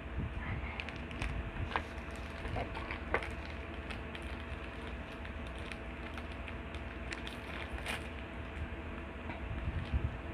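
Scattered soft clicks and rustles of handling, over a steady low rumble and a faint steady hum.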